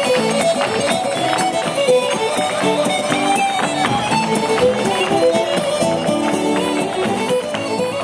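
A band playing lively traditional-style music: a melody line of held notes over a steady beat.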